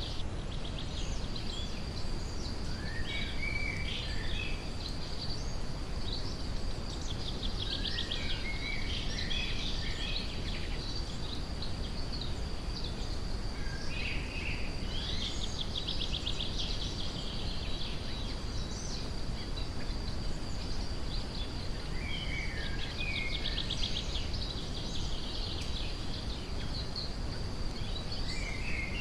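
Steady brown-noise rush under forest birds singing: scattered short chirps and whistled phrases from several birds, with a rapid trill coming three times. A thin, steady high tone sits above it all along.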